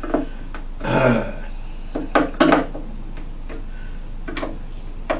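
Hard objects being handled on a workbench: a quick cluster of knocks and clicks about two seconds in, then a few single clicks, as tools and speaker parts are picked up and set down.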